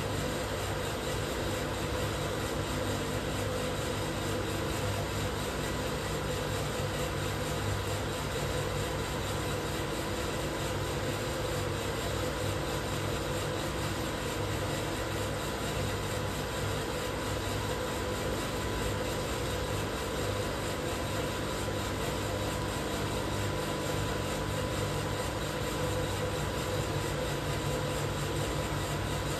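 Probatone P12 Series 2 12 kg drum coffee roaster running through a batch, giving an even mechanical hum with several steady tones and no changes.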